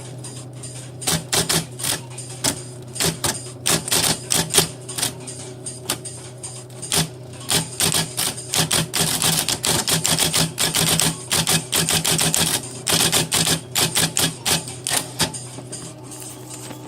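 Remington Remstar (Sperry Rand) golfball electric typewriter being typed on: a run of quick key strikes over a steady low hum. The strikes start about a second in, come fastest in the middle, and stop shortly before the end.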